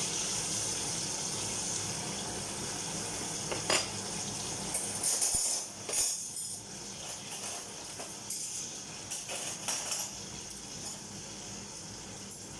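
Kitchen clatter: dishes and utensils clinking a handful of times over a steady hiss.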